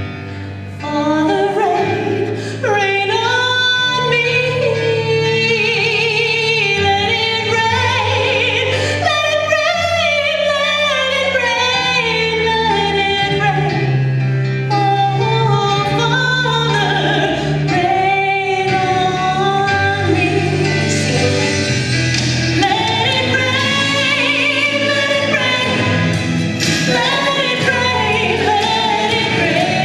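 A woman singing a Christian song over instrumental accompaniment, her melody gliding over long held bass notes.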